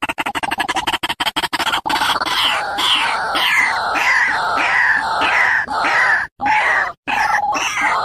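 A rapid pulsing music beat for about two seconds, then a white-breasted waterhen (ruak-ruak) calling over and over, about two calls a second, with two short breaks near the end.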